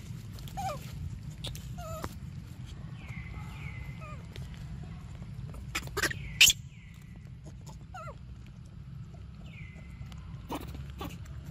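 Baby monkeys making short, high, wavering squeaks and whimpers while they grab and eat mango from a hand. Two sharp clicks about six seconds in are the loudest sounds.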